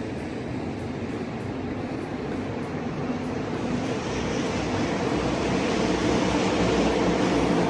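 Steady engine and vehicle noise that grows louder in the second half.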